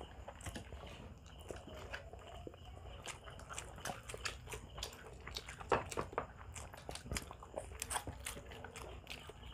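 Close-miked eating sounds of grilled Filipino barbecue eaten by hand: chewing and biting, with many scattered sharp crunchy clicks.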